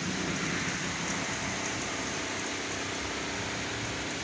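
Steady shopping-mall background noise: an even hiss with a faint low hum, no single event standing out.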